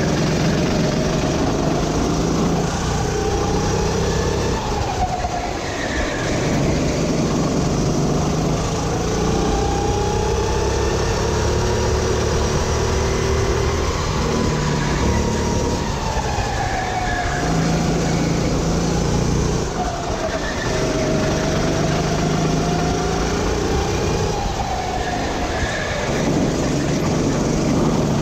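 Sodi RT8 rental kart's engine heard onboard at racing speed. The revs climb and fall over and over as the kart accelerates out of corners and lifts or brakes into the next ones.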